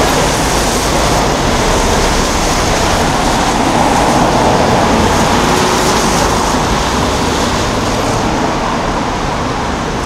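Steady city street traffic noise from cars and trucks passing through a busy intersection.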